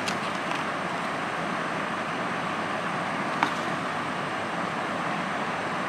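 Steady whooshing hum of a room air conditioner, with one light click about three and a half seconds in.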